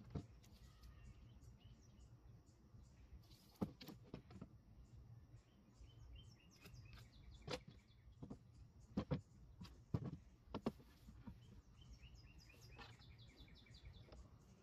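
Scattered knocks and taps of 2x4 lumber boards being handled and set down on a plywood work table, with birds chirping in the background.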